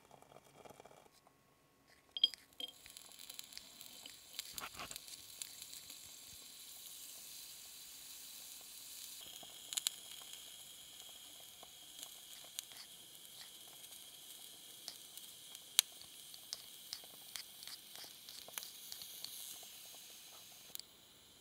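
A tiny steel saucepan of broth simmering on a miniature stove, a steady hiss with scattered small pops and clicks; the hiss starts about two seconds in. Hijiki seaweed is dropped into the pan midway and goes on simmering.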